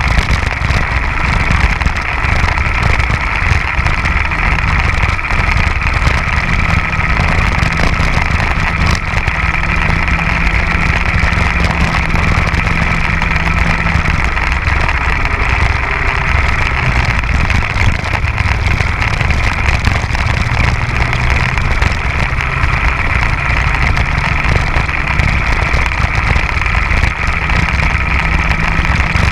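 Onboard sound of a Bambino kart's small 50cc two-stroke engine running at racing speed. Its note holds steady for long stretches, drops lower around the middle and rises again near the end as the throttle changes.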